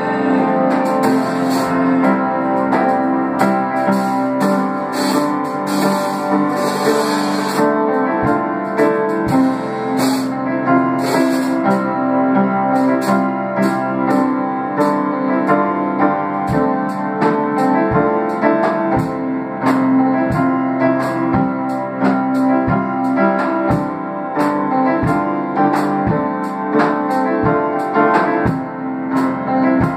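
Keyboard music: sustained piano-like chords, with short low thumps that turn into a steady beat about halfway through.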